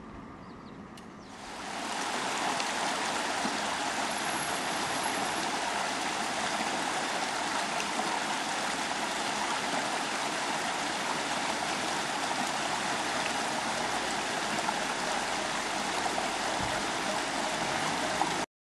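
Steady rush of a clear river flowing over a stony bed, swelling in over the first couple of seconds and cutting off abruptly near the end.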